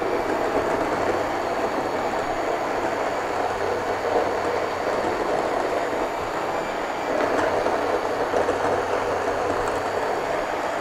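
Handheld immersion blender running steadily, its blade churning a bowl of tomato gazpacho (tomato, pepper, onion, stale bread, water and olive oil) into a purée.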